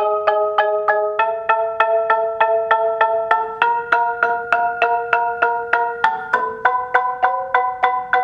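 Musser M32 Studio four-octave marimba with paduk bars played with four mallets: repeated struck chords, about three strokes a second, the chord changing every few strokes.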